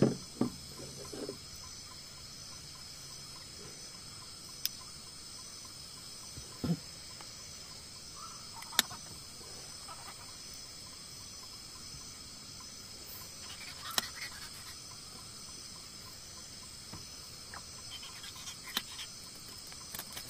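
Steady chorus of night insects such as crickets, a high continuous trill, with a few sharp isolated clicks here and there.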